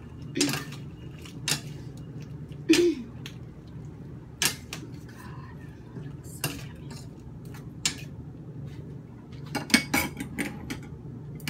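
Metal cooking utensils clinking and scraping against a stainless steel skillet as a shrimp stir-fry is stirred: separate knocks every second or two, then a quick flurry of clinks near the end.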